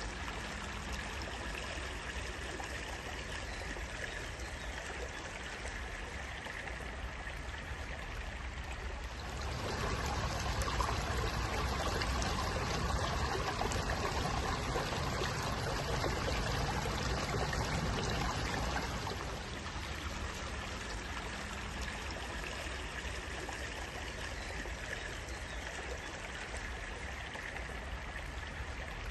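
Running water flowing steadily, like a stream, swelling louder for about ten seconds in the middle before settling back.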